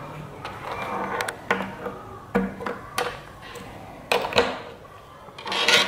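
Banana-plug connecting leads being pushed into the sockets of plastic bulb holders and the holders knocking on a tabletop: a series of short sharp clicks and knocks. Handling rustle around them, with a louder rustling burst near the end.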